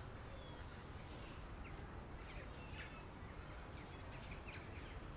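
Faint outdoor ambience, a steady low hum with scattered short bird chirps through the middle.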